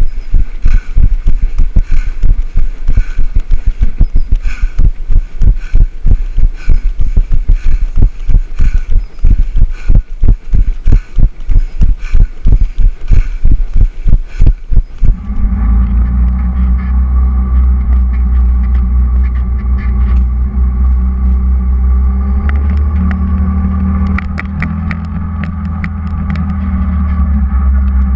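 A runner's footfalls thump on the body-worn camera at a steady jogging pace, about three a second. About halfway through, the thumping stops suddenly and a steady low rumble with a hum takes over.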